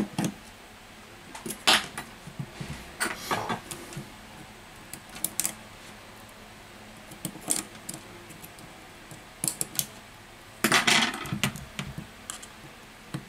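Tiny smartphone screws, tweezers and a precision screwdriver clicking and clinking as the screws are taken out and set down on a silicone work mat. A louder run of rattling clinks comes near the end.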